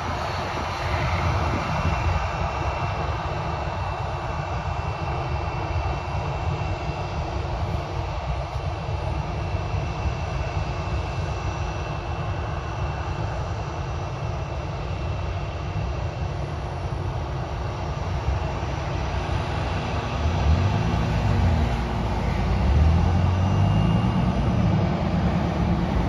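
Airbus A319-115's twin CFM56 jet engines running at low taxi power: steady jet noise with a thin high whine, growing louder over the last few seconds.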